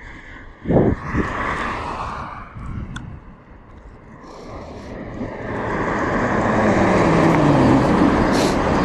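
A car approaching along the road and passing close by: tyre and engine noise build over several seconds, the engine note falling in pitch as it goes past.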